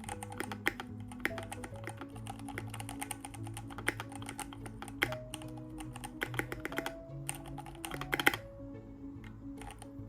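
Typing on a Keychron Q1 aluminium-bodied mechanical keyboard with red linear switches: a quick, irregular run of key presses, with a fast flurry of louder strokes about eight seconds in. Background music plays underneath.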